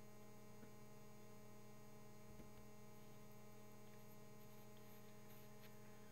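Near silence: a faint, steady electrical hum on the recording, with a few faint ticks.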